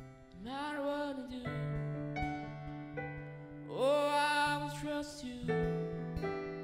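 Soft worship music: a Yamaha electric keyboard holds quiet sustained chords while a singer's voice comes in twice with long held notes, about half a second in and again near four seconds, each sliding up into the note.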